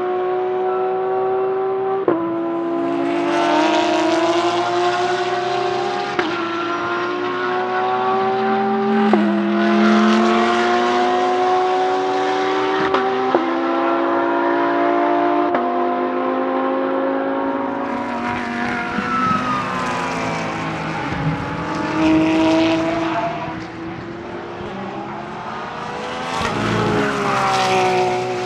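Porsche 992 GT3 R race car's naturally aspirated 4.2-litre flat-six accelerating hard through the gears, the revs climbing and dropping sharply at each of about five quick upshifts. In the second half the revs fall as the car slows, then climb again as it passes close by near the end.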